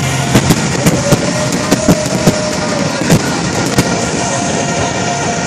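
Fireworks display: aerial shells bursting, about ten sharp bangs in the first four seconds over a steady crackling din, then fewer.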